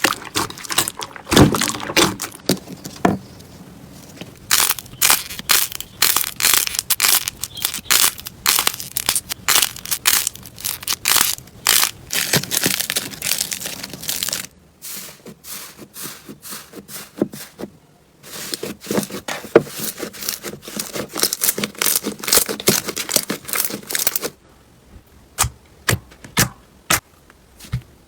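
Slime being squeezed and pressed by hand, making dense irregular crackling, crunching and quick popping clicks. The texture changes abruptly twice, with the last part a sparser run of single clicks.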